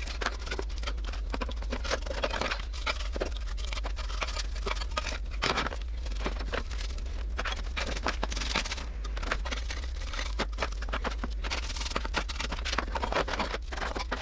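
Irregular scraping and clicking of hand work on the rusty pressed-steel toy jeep, over a steady low hum.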